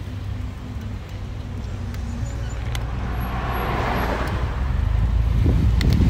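A car passing close by the bicycle, its tyre and engine noise swelling and fading about halfway through, over a low rumble of wind on the microphone that grows steadily louder.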